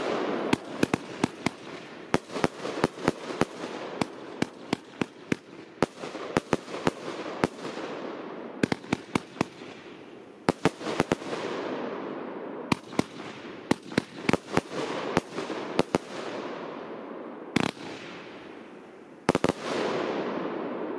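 Fireworks going off in quick, irregular succession: dozens of sharp bangs over a continuous rushing hiss and crackle. The bangs thin out near the end, closing with a double bang.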